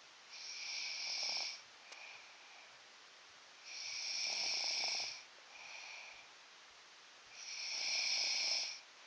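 A person snoring loudly in sleep: three long snores about three and a half seconds apart, with a softer, shorter breath sound between them.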